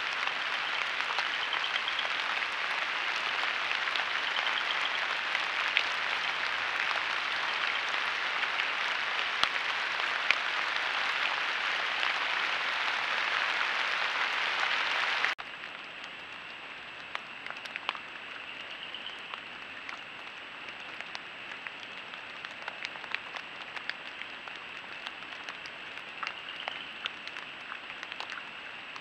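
Outdoor night ambience picked up by a trail camera's microphone: an even hiss for about fifteen seconds, then a sudden cut to quieter ambience with a steady high-pitched frog chorus and scattered faint ticks.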